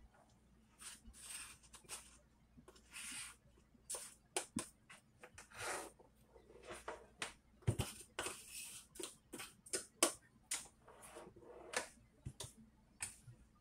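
Faint, irregular taps and clicks of a stainless-steel mixer-grinder jar knocking against a metal sieve as ground rice flour is shaken out of it, with brief soft swishes of the flour falling.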